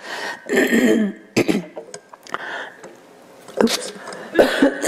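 A person coughing and clearing a dry throat in several separate bursts spread over a few seconds.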